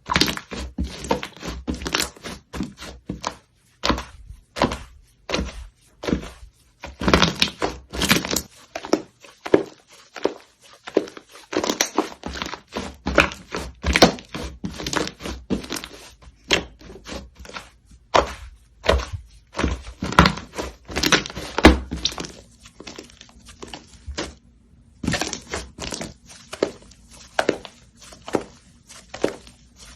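Slime being squished and pressed by hand, making a quick, irregular run of sticky clicks and pops with a couple of brief pauses.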